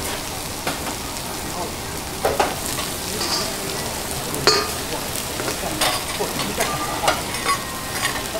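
Food sizzling on a hot teppanyaki griddle, with metal spatulas repeatedly clinking and scraping on the plate; the sharpest strikes come about two and a half seconds in and just after four and a half seconds.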